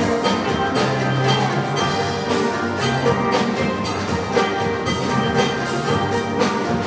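A steel band playing: several steel pans sounding a tune and chords over a steady percussion beat.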